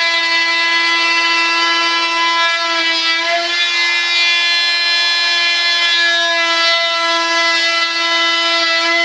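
Handheld oscillating (vibrating) saw running steadily as it cuts a gear door hatch out of a model jet's molded fuselage skin. It gives a loud, even buzzing hum whose upper tones shift slightly as the blade bites.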